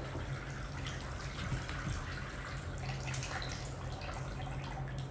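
Water trickling steadily from a small plastic toy watering can into a steel bowl already holding water.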